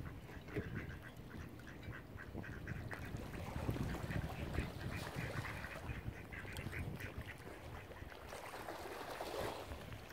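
Ducks quacking, many short calls in quick succession, over a low rumble.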